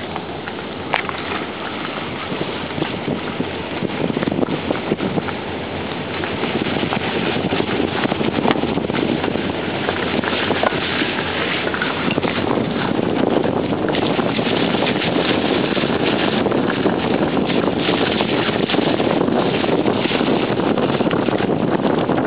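Tyre and wind noise of a car driving along a wet track, heard from inside the cabin. It grows louder about six seconds in, then stays steady.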